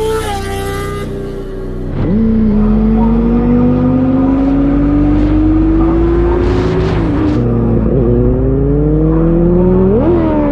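Benelli 600i inline-four engine under way. Its pitch climbs steadily for several seconds as the bike gathers speed, dips briefly about seven and eight seconds in, then rises sharply in a quick rev near the end.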